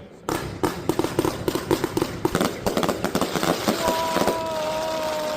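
Riakeo 'The Great Wall' fireworks firing a dense, rapid string of sharp reports and crackles. Near the end a steady two-tone whistle joins in, dipping slightly in pitch before stopping.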